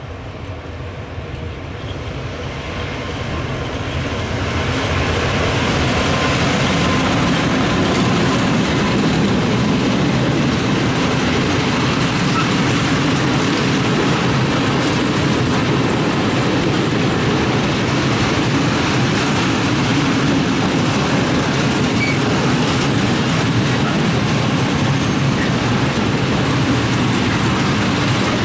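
Freight train of open coal wagons behind an ET22 electric locomotive rolling past close by, with a steady rumble of wheels on rail. The sound swells over the first few seconds as the train arrives, then holds steady.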